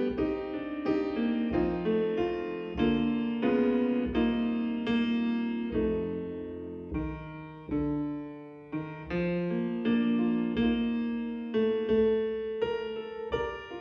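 Piano playing slow, sustained chords in a quiet instrumental piece, each chord struck and left to ring before the next.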